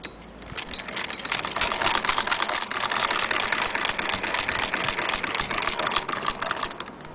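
Antique Bradbury fiddle-base hand-crank sewing machine stitching through denim: a fast, even clatter of needle and feed clicks that starts about half a second in and stops shortly before the end.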